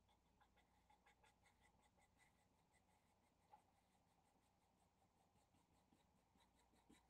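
Faint scratching of a marker's felt tip on paper, a quick run of short repeated strokes while colouring in a dark area.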